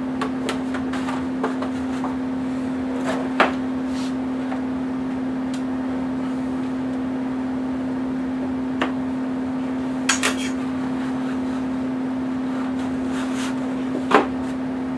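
Hard 3D-printed plastic airplane parts being handled as a wing is fitted onto the fuselage over its spars: scattered light clicks and knocks, the sharpest about three and a half seconds in, a pair around ten seconds, and one near the end. A steady low hum runs underneath.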